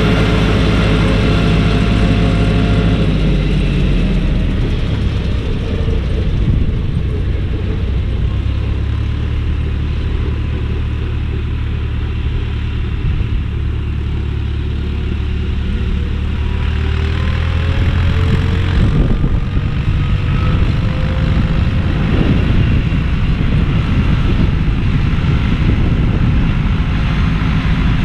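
John Deere tractor engine running under load as it pulls a Deutz-Fahr KM 22 CR drum mower through grass. Its pitch drops a few seconds in, and the engine note fades away over the second half, leaving a low rumbling noise.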